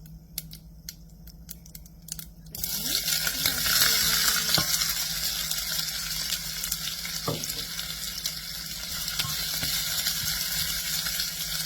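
Mustard seeds crackling in hot oil as scattered sharp pops; about two and a half seconds in, a loud sizzle starts as chopped onions go into the oil, and the frying goes on steadily.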